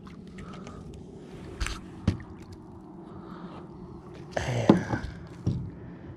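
A small bass being landed into a kayak: sharp knocks about one and a half and two seconds in, then a burst of splashing and dripping water as the fish is lifted out of the water, with a knock as it lands.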